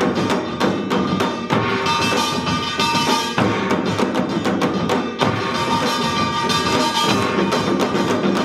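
Samul nori percussion ensemble playing a busy rhythm together: janggu hourglass drums and buk barrel drums struck in dense strokes over the steady ringing of gongs.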